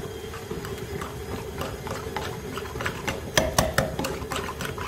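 Metal wire whisk beating thick pastry cream and chocolate spread in a small bowl: quick, irregular clicks and taps of the wires against the bowl, loudest a little past three seconds in, over a steady low hum.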